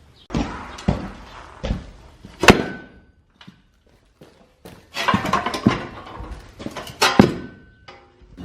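Two bursts of knocks, thuds and scraping, with a sharp loud knock about two and a half seconds in and a pause between the bursts.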